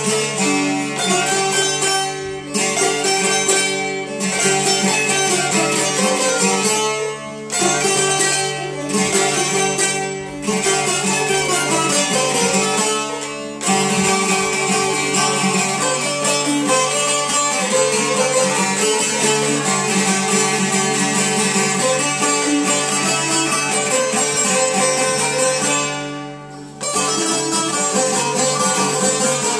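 Albanian long-necked folk lutes, çifteli and sharki, played together in an instrumental tune over a steady low drone. The playing drops briefly between phrases several times.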